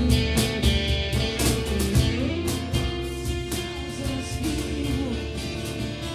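Live acoustic rock band playing an instrumental passage: guitars over a steady beat, growing quieter about halfway through.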